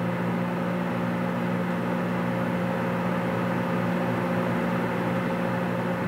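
Microwave oven running: a steady low electrical hum with a fan whir over it.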